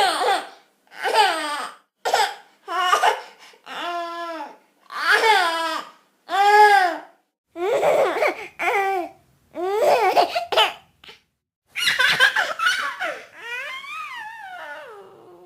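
A baby laughing in about a dozen short, high-pitched bursts, with brief silences between them. Near the end the laughter turns breathier and fades.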